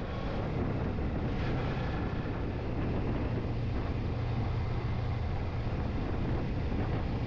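Suzuki V-Strom 250 motorcycle's parallel-twin engine running steadily under way, with wind rushing over the microphone.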